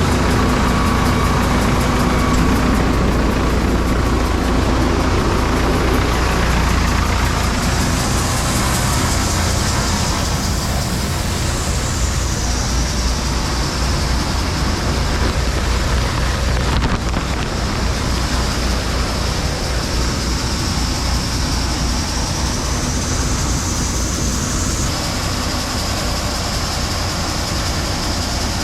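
Tractor engine running steadily under load, with a high whine above it that wavers in pitch and drops slightly near the end.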